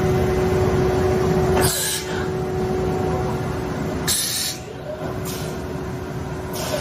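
EGURKO DART 800 CNC machining centre running with a steady tonal hum, which cuts out about 1.7 seconds in. Four short bursts of hiss follow at uneven intervals.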